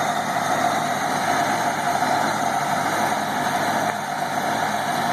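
Engine of a 1940s Longyear core drill running steadily.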